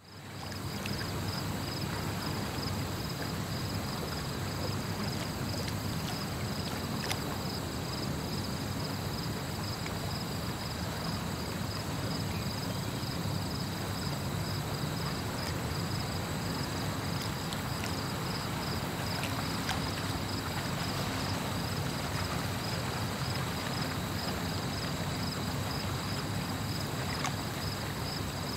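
Water swishing and lapping around a canoe being paddled on a calm river, a steady wash of sound, with a steady high, evenly pulsing chirp over it.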